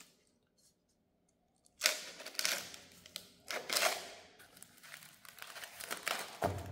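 Packaging crinkling and tearing in several bursts as a flap wheel is unwrapped by hand, starting about two seconds in.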